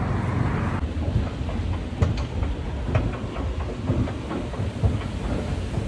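A moving vehicle: a steady low rumble with irregular sharp clacks and knocks over it, the kind of rattle a carriage makes running over rail joints.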